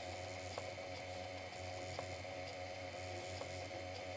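Compact desktop laser engraver running as it burns a design into paper: a steady low hum with a faint high-pitched whine and a few faint ticks.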